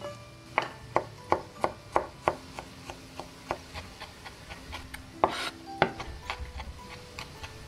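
Chef's knife mincing garlic on a wooden cutting board. A run of sharp knocks of the blade on the board comes about three a second, then lighter, quicker taps follow, with a brief scrape and another knock about five seconds in. Faint background music plays underneath.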